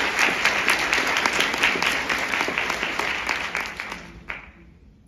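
Audience applauding, with one pair of hands clapping close by; the applause dies away about four seconds in.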